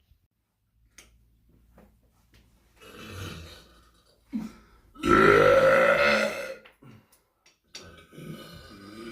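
A person burping: a shorter burp about three seconds in, then a long, loud burp lasting nearly two seconds with a bending pitch, and more burping starting near the end.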